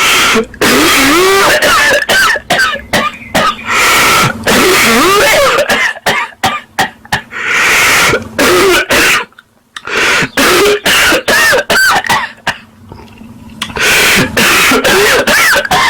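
A pet monkey hiccuping and crying: many short, sharp hiccup bursts with squeaky cries sliding up and down between them, easing off for a few seconds about two thirds of the way in.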